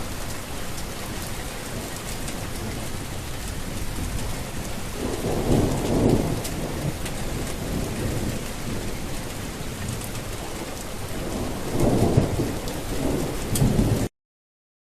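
Steady rain with two low rolls of thunder, one about five seconds in and one near the end. The sound cuts off suddenly just before the end.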